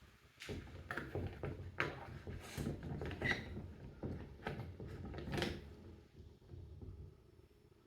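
Golf iron and loft and lie machine being handled: a busy run of clicks, knocks and rubbing as the club is set into the machine, thinning out after about six seconds.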